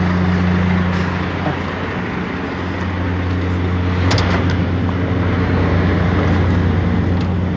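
A vehicle engine running steadily, a deep even hum that dips for a moment about two seconds in, with a sharp click about four seconds in.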